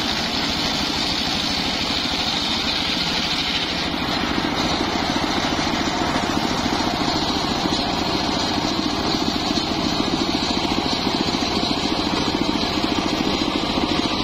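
Engine of a homemade table circular sawmill running steadily, with no marked change in load.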